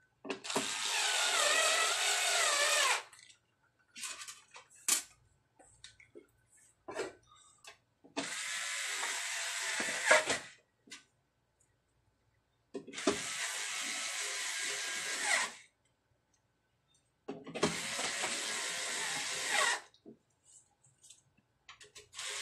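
Small cordless electric screwdriver driving screws into a power amplifier's metal top cover: four runs of about two and a half seconds each, the motor's whine bending in pitch under load. Small clicks and taps of screws and handling come between the runs, and a fifth run starts right at the end.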